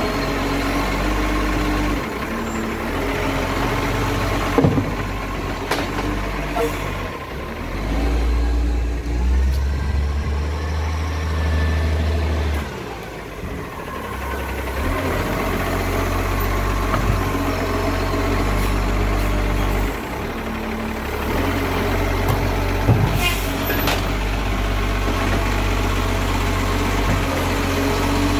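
Side-loader garbage truck's diesel engine running, with its pitch changing as it drives the hydraulic bin-lifting arm through a bin pickup, giving the truck's distinctive chugging sound; the engine swells for a few seconds partway through, and there are a few sharp knocks.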